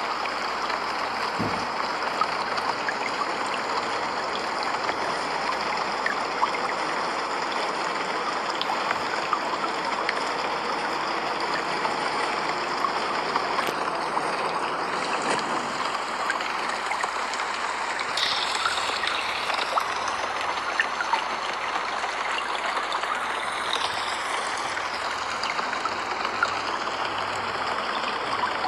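Steady rain falling, a continuous hiss with fine pattering and running water.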